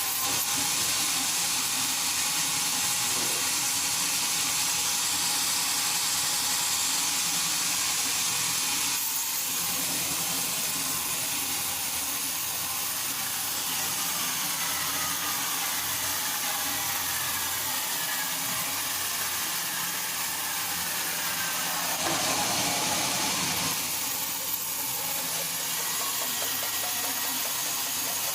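Sawmill machinery running steadily while cutting teak, a continuous hissing whir with a couple of brief louder swells.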